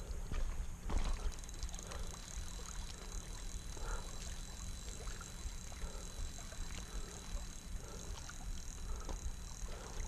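Wind buffeting the camera microphone: an unsteady low rumble with a few faint ticks scattered through it.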